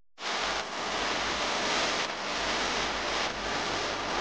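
A steady, even rushing hiss that starts suddenly out of silence just after the start and then holds with only slight dips.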